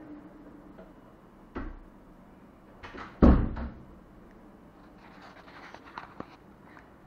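A door shutting with a heavy thump about three seconds in, after a softer knock; light clicks and rustling follow.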